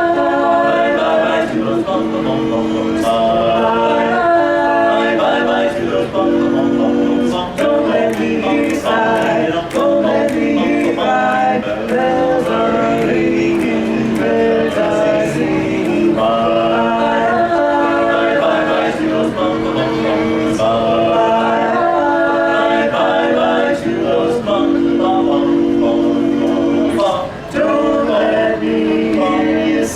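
Male a cappella vocal quartet singing in close barbershop harmony, in long held chords with short breaks between phrases.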